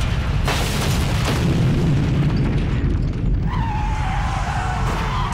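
Cartoon destruction sound effects: a continuous deep rumble as a highway overpass cracks and breaks apart, with two sharp crashes in the first second and a half. Tyres screech from about three and a half seconds in as cars swerve on the broken roadway.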